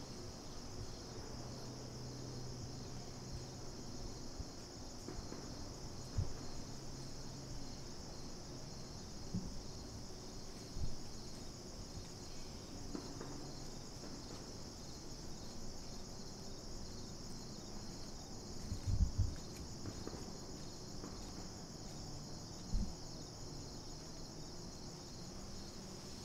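Steady chorus of crickets and other insects, a high continuous trilling with a fast pulse. A few short low thumps stand out, the loudest about two-thirds of the way through.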